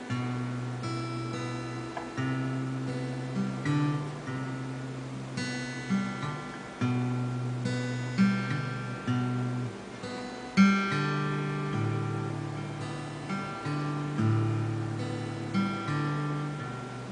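Alvarez acoustic guitar strummed, playing a slow chord progression with the chords changing every second or two. The hardest strum comes about ten and a half seconds in.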